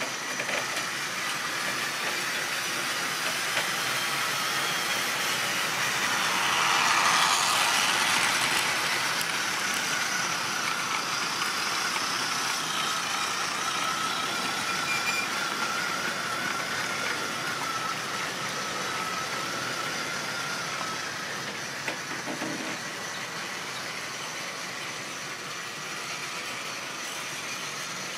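Model railway goods train running round curved track, its wheels rattling on the rails. The sound swells to its loudest a few seconds in as the wagons pass close, then slowly fades, with a thin steady whine through the middle of the pass.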